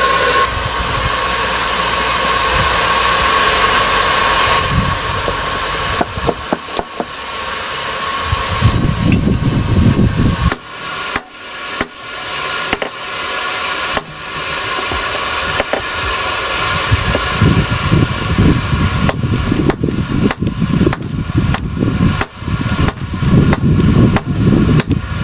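Hand hammer striking hot high-carbon steel on an anvil in a long run of sharp, irregular blows, at times several a second, as a hammer head is forged out into an axe bit. For the first six seconds or so there is only a steady rushing noise before the hammering starts.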